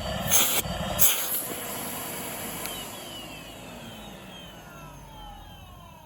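Numatic Hetty 160 vacuum cleaner running, switched off about a second in, its motor whine then falling steadily in pitch as it spins down.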